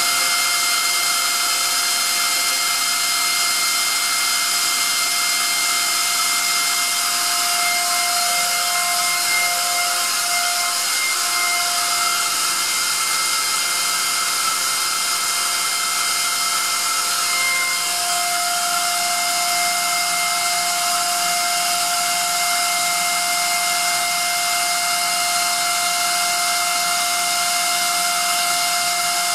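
Atlas Copco ZR 250 two-stage oil-free rotary screw air compressor running steadily: a loud, even hiss with several steady whining tones. One mid-pitched tone fades out around the middle and comes back strongly a few seconds later.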